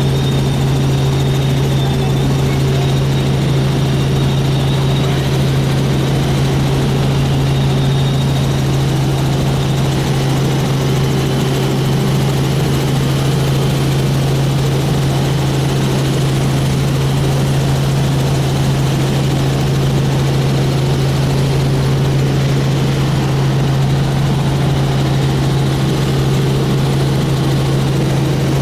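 Helicopter running with a steady, unchanging drone and a strong low hum.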